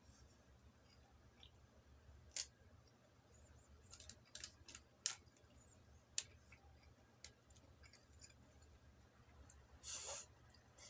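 Faint eating sounds while chewing inari sushi with chopsticks: a scattering of small sharp clicks and smacks, a quick cluster of them about halfway through, and a short rustle near the end.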